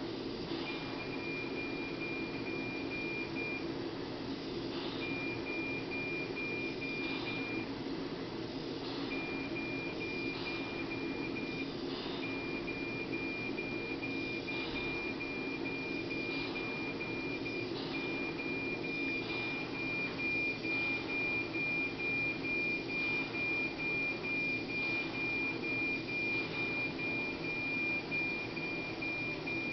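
Neonatal mechanical ventilator running with a steady hum and regular breath cycles. Over it a high, steady alarm beep sounds in stretches of a few seconds, then holds unbroken for the last ten seconds or so.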